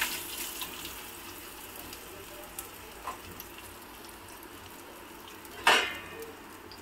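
Fish frying in hot oil: a steady sizzle that eases a little in the first second. A single sharp clatter comes about five and a half seconds in.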